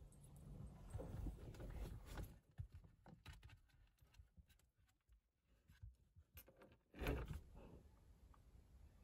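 Near silence broken by rustling handling noise about a second in and a short dull thump about seven seconds in, as the phone is moved from outside into a vehicle.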